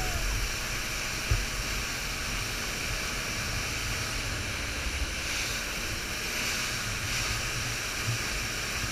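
Steady rush of wind and water from a motorboat running at speed, with wind buffeting the microphone. There is a single short knock about a second in.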